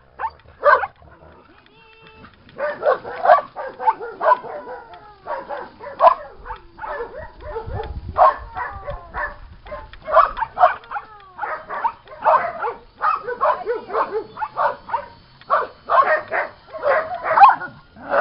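Several dogs barking over and over, the barks short and often overlapping, with a brief lull about a second in.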